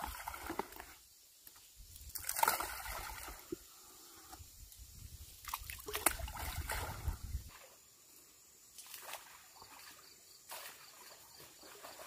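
Small shallow stream trickling over stones, with scattered clicks. A low rumble underneath stops a little past halfway.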